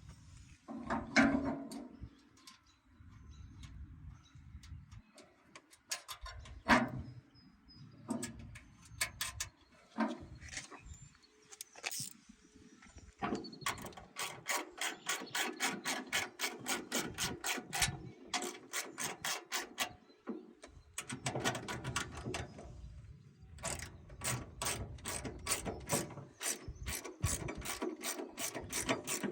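A few scattered knocks and clinks of metal parts being handled, then a socket ratchet clicking rapidly, about five clicks a second, in three runs with short pauses, as 1/4-20 nuts are run down onto the mounting brackets.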